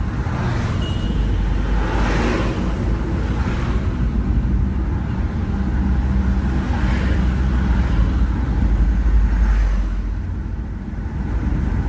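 Old truck's engine and exhaust running steadily, a low drone with noise above it, easing slightly near the end.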